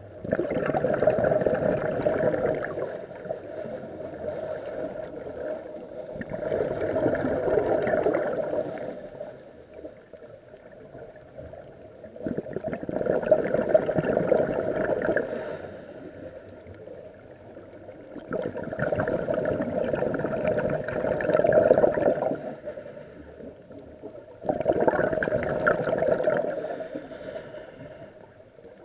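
A scuba diver's exhaled bubbles from the regulator, heard underwater: five long bubbling bursts about every six seconds, with quieter gaps between them as the diver breathes in.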